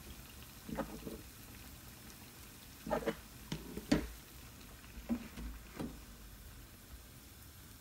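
Hot oil frying a sfenj with a low sizzle, broken by a handful of short knocks and clatters at the stove, the loudest about four seconds in.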